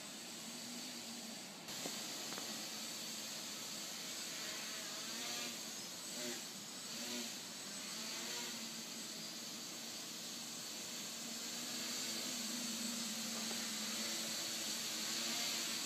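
Steady hiss with a faint, wavering whir from the RotorBits tricopter's brushless motors and propellers.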